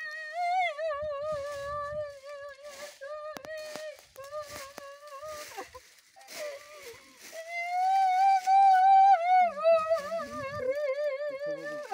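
A woman's high voice chanting in long, wavering held notes, broken by short pauses for breath and rising to its loudest about two-thirds of the way through.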